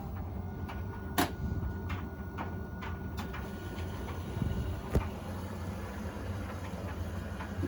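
Beko washing machine starting its wash cycle: a steady low hum with a few sharp clicks, the loudest about a second in and another near five seconds in.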